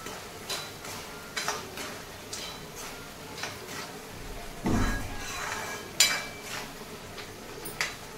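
Steel ladle scraping and clanking against a steel kadai while stirring frying masala, in irregular scrapes and taps. A heavier knock comes about halfway through, and the sharpest clank about six seconds in.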